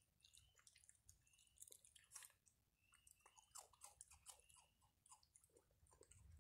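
Raccoons faintly crunching and chewing dry treats such as dog biscuits, with many scattered crisp clicks. A short high peep repeats about once a second in the background.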